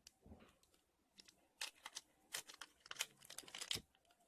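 Scissors snipping into a small plastic toy wrapper, with faint, scattered sharp clicks and crinkling of the plastic.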